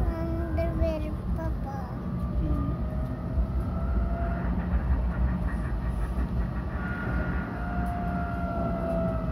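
Inside a tram: steady low rumble of the car running on its rails, with the electric motors' whine slowly falling in pitch as the tram slows for a stop.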